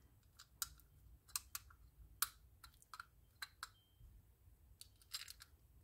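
Faint, irregular small clicks and ticks of tiny metal frame screws and a vintage Penn 210 reel being handled as the screws are lined up and started by hand.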